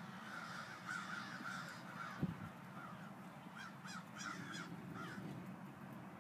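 Birds calling outside in short repeated calls, in two runs, over a steady low hum, with a single sharp knock about two seconds in.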